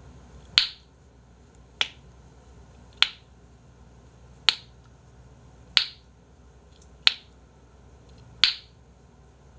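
Seven sharp clicks, evenly spaced about a second and a quarter apart, made by a person's hands and jaw as a body trick: fingers interlocked, with the clasped hands pressed against the jaw and cheek.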